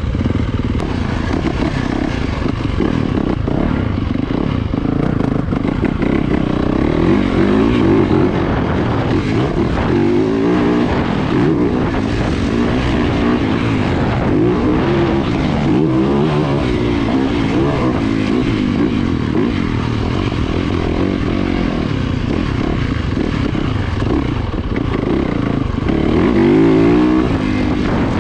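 Yamaha YZ450FX's 450 cc single-cylinder four-stroke engine being ridden hard, its pitch rising and falling again and again as the throttle is opened and shut through the gears, loudest about a second before the end.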